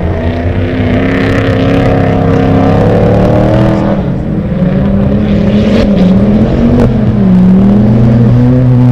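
Several autocross racing cars' engines running hard on a dirt track. Their notes overlap, climbing steadily and then dropping sharply around four, six and seven seconds in as the engines rev and shift.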